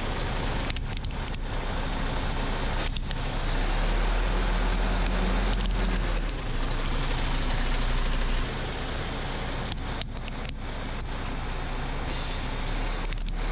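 Heavy truck running slowly, a steady low engine rumble with tyre noise on concrete, breaking off briefly several times.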